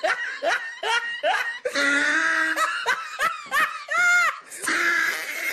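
A person laughing hard in quick, repeated bursts, with a longer, higher cry about four seconds in.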